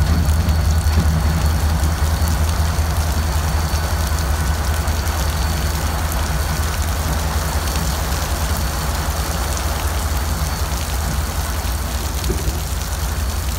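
Diesel locomotive engines rumbling low and steady as the units pull away, slowly fading, under the steady hiss of rain.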